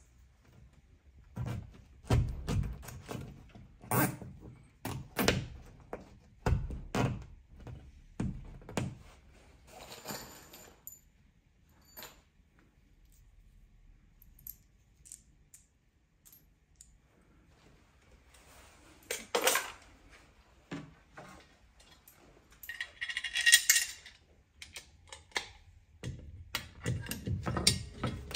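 Small metal fixings (a wall anchor, a screw and a washer) clinking and knocking as they are handled, with a bright metallic jingle a little past the middle. Near the end, a hand screwdriver scrapes as it drives a screw through a steel TV wall bracket.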